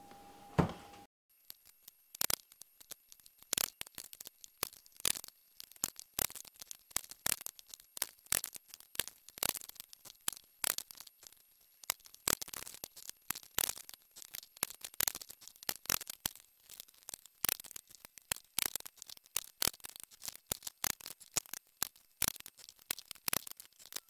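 Cordless Ryobi 18-gauge brad nailer driving brads into pine parts, mixed with the knocks of the wood being handled: a dense, irregular run of sharp clicks and knocks, several a second, starting about a second in.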